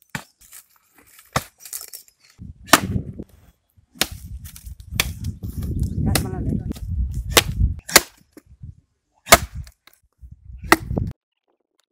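Axe chopping into a tree stump or root: a series of sharp, loud strikes roughly a second apart, with low rumbling noise between some of them.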